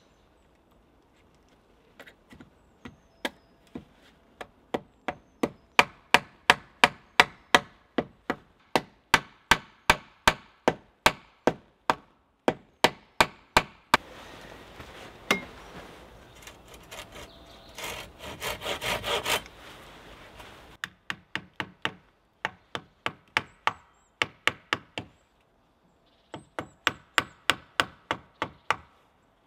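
Wooden mallet knocking a round-wood rail into place against an upright post: runs of sharp wooden knocks about three a second, broken by pauses, with a quicker flurry of knocks around the middle.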